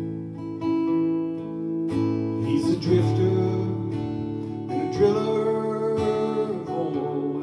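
Acoustic guitar strumming chords, with a long, wavering melody line held over the chords from about two and a half seconds in.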